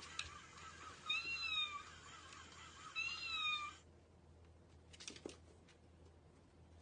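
Three high, kitten-like meows, alike in shape, about two seconds apart, each rising then falling in pitch. After them it goes quiet, with a couple of faint taps about five seconds in.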